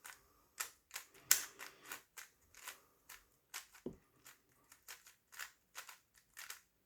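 A stickerless Rubik's cube being scrambled by hand, its plastic layers clicking as they are turned in a quick, irregular run of twists. There is one duller low thump about four seconds in.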